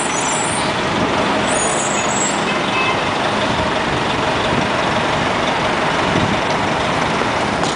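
NovaBus RTS-06 transit bus with a Detroit Diesel Series 50 inline-four diesel, running steadily as it pulls away through a turn, over street traffic. A few brief high-pitched squeaks come in the first couple of seconds.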